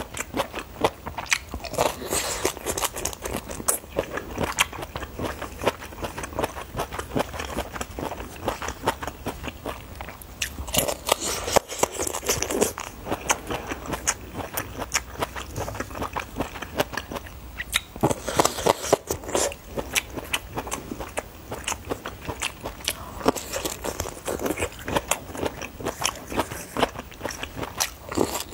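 Close-miked crunching and chewing of roasted, chili-dusted bamboo shoot, a dense crackle of bites with several louder bouts of crunching.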